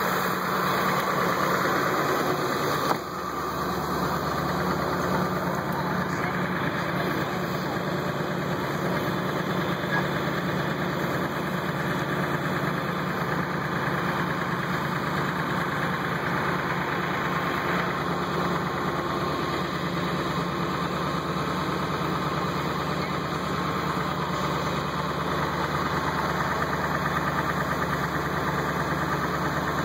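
A vehicle engine idling steadily, with a short dip in level about three seconds in.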